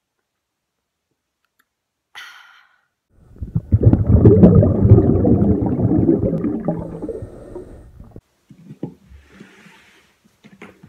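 A brief hiss about two seconds in, then a loud, deep, rough rumbling noise lasting about five seconds that fades and cuts off abruptly.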